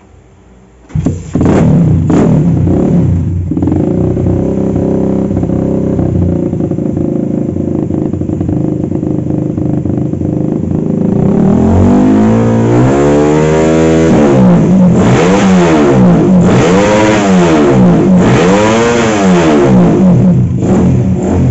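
Suzuki Satria FU motorcycle's bored-out 200cc single-cylinder four-stroke engine, built with a lighter 2.8 kg crankshaft, starts about a second in and runs steadily at a fast idle through an aftermarket exhaust. From about halfway it is revved up and down several times in quick blips.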